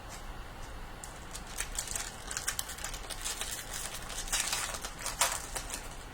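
Plastic trading-card pack wrapper crinkling and rustling as it is handled and torn open, in irregular crackly bursts that get busier after the first second or so and are loudest near the end.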